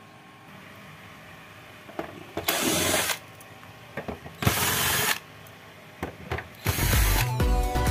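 Cordless drill-driver spinning screws out of a TV's plastic back cover in two short runs of under a second each, with small clicks between. Music comes in near the end.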